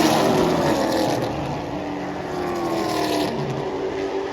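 Stock cars racing past on a short oval track, their engines running hard with the pitch falling as they go by, loudest at the start and easing off.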